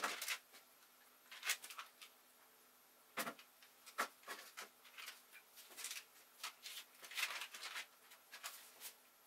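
A knife blade spreading and smoothing a wet vegetable paste on baking paper: faint, short scrapes and paper rustles at irregular moments, a little louder near the start and about three and four seconds in.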